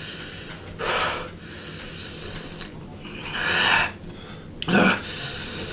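A man breathing hard through his mouth in a few loud, sharp, rasping breaths, reacting to the burn of a superhot chili chocolate.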